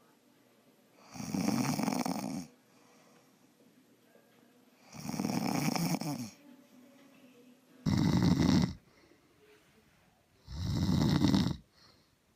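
Loud snoring: four long snores, each lasting about a second, spaced roughly three seconds apart.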